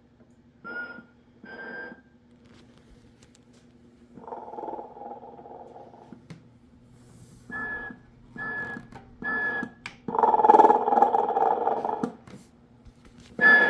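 Telco Snoring Santa toy's snoring effect: rasping snores alternating with short whistling puffs. There are two whistles near the start, a snore about four seconds in, three quick whistles around eight seconds, then a louder snore, over a steady low hum.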